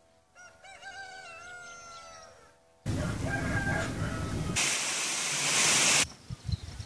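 A rooster crowing, one long call that rises and then holds and slowly falls. After it, the sound cuts to a steady outdoor noise and then to a loud rushing hiss lasting about a second and a half.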